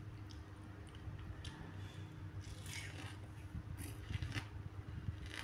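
Eating fresh fruit: a few short, wet crunching bites and chews, then a metal fork spearing a piece of melon on a plastic plate near the end.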